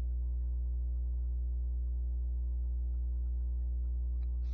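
Steady low electrical hum with a row of overtones, like mains hum picked up in a microphone or audio line.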